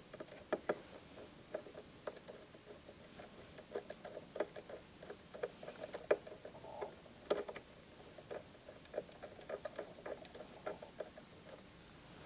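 Faint, irregular small clicks and ticks of a screwdriver working the upper knife's retaining screw on a Pfaff Hobbylock serger, with fingers setting the new upper knife in place.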